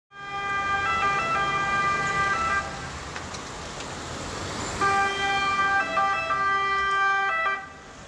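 Ambulance two-tone siren, stepping back and forth between a higher and a lower pitch, over traffic noise. It drops back for about two seconds in the middle, comes back loud, and falls away near the end.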